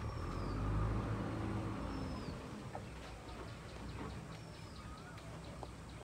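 A heavy diesel engine of an earthmoving vehicle running steadily at low revs, a little louder in the first two seconds. Birds call over it with short high descending whistles, three times.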